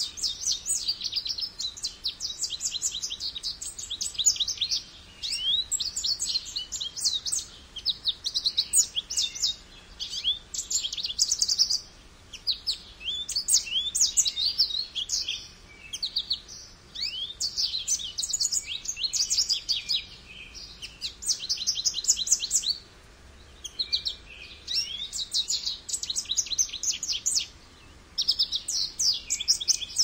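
American goldfinch singing: long runs of rapid, high twittering notes with slurred whistles, in phrases of a few seconds broken by brief pauses.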